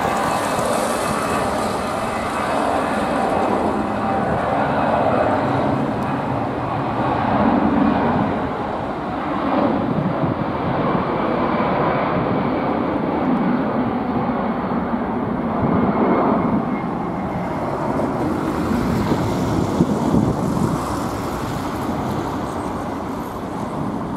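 Airbus A320-214's two CFM56-5B turbofan engines at takeoff thrust during the takeoff run: a steady jet rumble with slow swells in loudness and a faint high whine.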